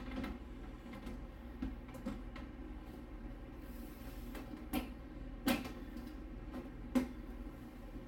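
Side panel of a PC case being fitted back on, with three sharp knocks of the panel against the case, the last the loudest, over the steady low hum of the running computer's fans.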